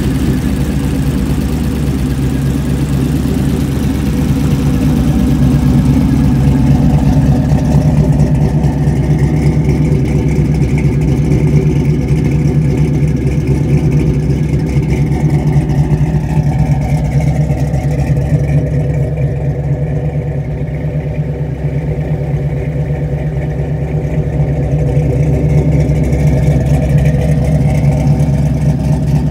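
Boss 429 V8 with two Holley four-barrel carburetors idling steadily through large-tube headers and a dual exhaust.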